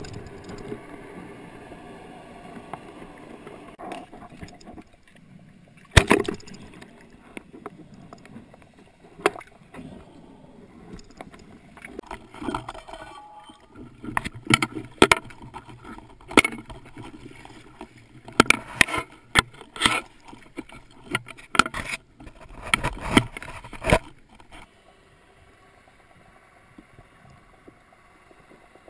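Irregular knocks and clunks of speargun gear and line being handled on a kayak, over a low rumble of water and camera-housing noise, with a cluster of knocks in the middle and a quieter stretch near the end.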